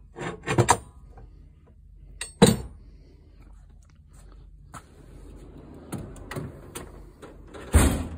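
A few sharp metallic clanks of large wrenches being set into a steel tool box drawer, then the drawer runs shut on its slides with a rumbling noise and closes with a bang near the end.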